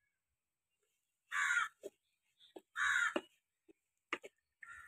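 A crow cawing: two harsh caws about a second and a half apart, with a third starting at the very end, and a few light clicks in between.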